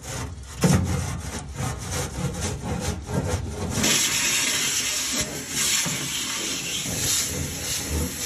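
A brush scraping and breaking up ash and pellet debris inside a pellet smoker's firebox in quick repeated strokes. About four seconds in, a vacuum hose takes over, sucking up the ash and dust with a steady rushing hiss.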